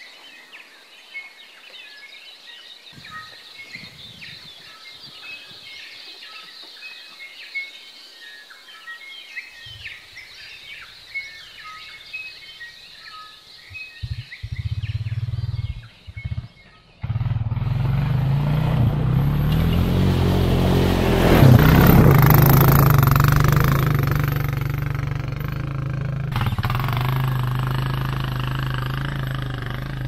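Birds chirping and singing short, separate notes. About halfway through, after a couple of short bursts, a quad bike's engine takes over loud and steady; it swells to its loudest a few seconds later, then runs on slightly quieter as the bike rides along a dirt track.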